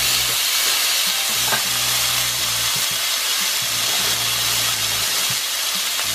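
Beef steak searing in a hot stainless steel frying pan, a steady sizzle.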